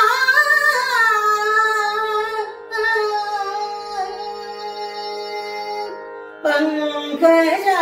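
A woman singing Carnatic music in raga Pantuvarali, holding out a long, wavering, ornamented vowel line over a steady drone. She breaks off briefly twice, the second time near the end, and comes back in with quicker turns of pitch.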